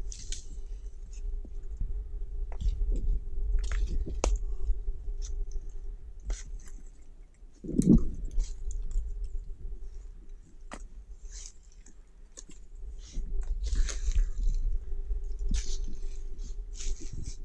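Footsteps crunching and rustling through dry fallen leaves and grass, with scattered crackles of brush, while someone walks slowly uphill. A faint steady hum sits underneath.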